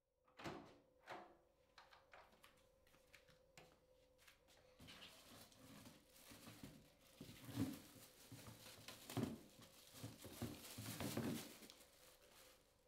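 Plastic bag rustling and crinkling as it is handled and gathered up, louder in the second half, after a couple of knocks in the first second or so. A faint steady hum runs underneath.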